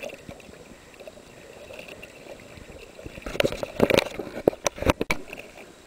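Water sloshing and trickling around a fishing boat. About three seconds in it gives way to a quick run of sharp knocks and splashes that stops about a second before the end.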